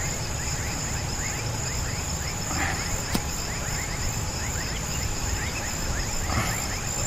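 Insects chirring: a steady high-pitched drone with many short chirps repeating over it, and one sharp click about three seconds in.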